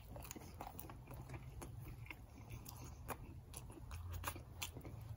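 A person biting into and chewing a mouthful of a toasted-bread breakfast sandwich, with many small crunches and mouth clicks. A faint low hum lies underneath.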